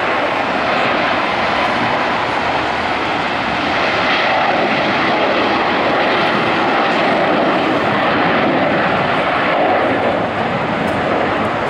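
Boeing 777-300ER's twin GE90-115B turbofans at takeoff thrust as the jet lifts off and climbs out: a loud, steady jet noise that swells slightly about four seconds in and eases a little near the end.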